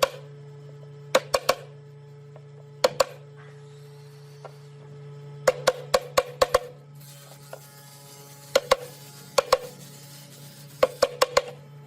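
Hammer blows on wood, single knocks and quick runs of four to six taps with pauses between, over a steady low hum.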